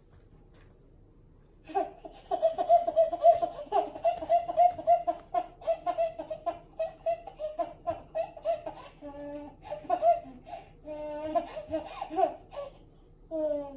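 Baby laughing hard, a quick string of belly laughs at about four or five a second, starting about two seconds in and lasting about ten seconds, with one short last laugh near the end.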